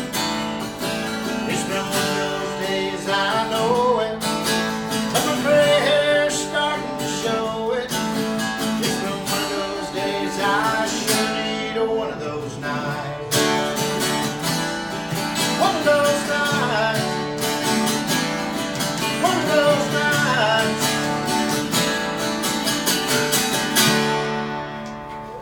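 Acoustic guitar strummed in a steady country rhythm, playing the song out with no lyrics, and dying down near the end.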